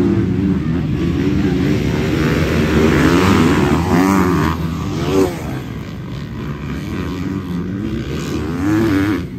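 Several dirt bike engines revving hard as a pack of racing bikes accelerates across grass, the pitch rising and falling with throttle and gear changes. The sound is loudest about three to four seconds in, as bikes pass close, then eases off.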